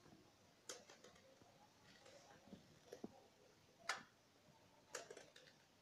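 Small kitchen knife slicing rounds off an eggplant held in the hand: a few faint clicks as the blade cuts through, the loudest about four seconds in, over near silence.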